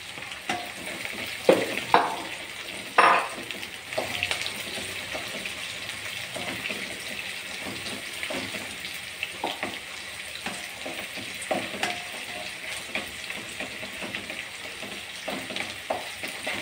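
Shallots and garlic frying in sesame oil in a nonstick wok, with a steady sizzle and a wooden spatula stirring and scraping against the pan. A few sharp knocks in the first three seconds are the loudest sounds.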